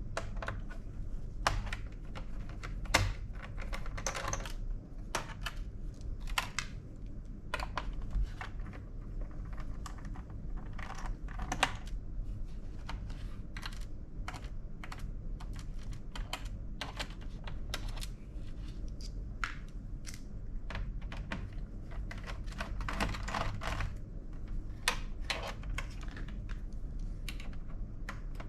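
Irregular small clicks and taps of hand work on a laptop, its plastic case and small screws being handled during disassembly, over a steady low hum.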